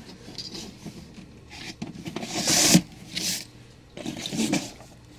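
A stack of comic books being handled and slid over other comics: paper rubbing and scraping in a few strokes, the loudest about halfway through.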